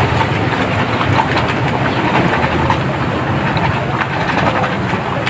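Water running and splashing into a basin of shampoo and dish soap, churning up a wash solution.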